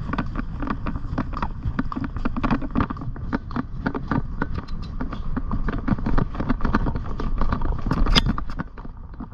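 Hoofbeats of a ridden pony moving along a track: rapid, irregular knocks over a steady low rumble, easing off near the end.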